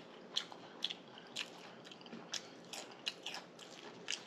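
A person chewing a bite of tuna fish sandwich close to the microphone: wet crunching and lip smacks, about two a second.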